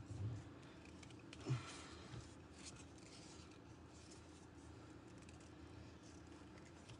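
Wooden spoon stirring and scraping through stiff, floury dough in a glass bowl, faint, with a soft knock against the bowl about a second and a half in. A low steady hum lies underneath.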